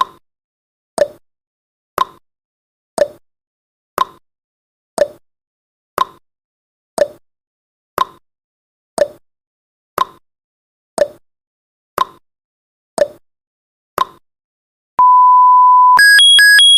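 Countdown timer sound effect ticking once a second, about fifteen ticks, then a steady one-second beep as it reaches zero, followed by a fast alternating high-pitched electronic alarm beeping.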